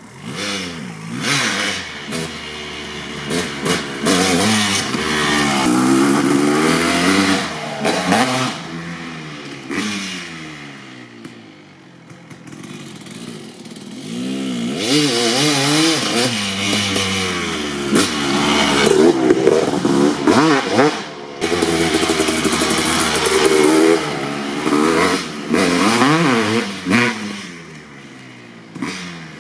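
A 2003 Kawasaki KX250 two-stroke dirt bike engine, fitted with an FMF Gnarly expansion pipe and PC R304 silencer, being ridden hard. The revs climb and drop again and again through the gears. It eases off and quietens for a few seconds partway through, then pulls hard again.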